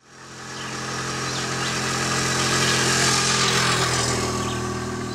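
A steady, low engine hum fading in over about the first second, with a few short bird chirps over it.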